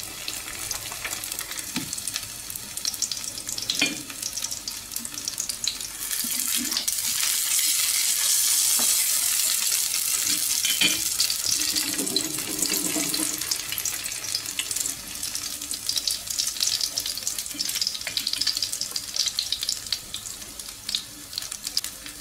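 Coho salmon steak frying in oil in a nonstick pan, a steady sizzle with fine crackles in the last stage of cooking. The hiss swells louder for several seconds in the middle, then eases back.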